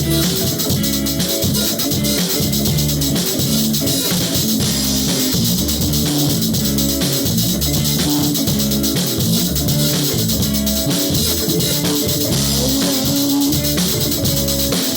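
Music: guitar with drums and percussion, playing a steady rhythm.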